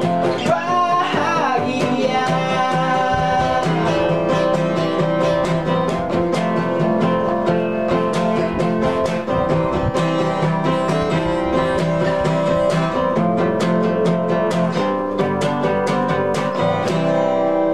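A steel-string acoustic guitar and a nylon-string classical guitar playing together, one strumming chords while the other picks notes, in a steady rhythm.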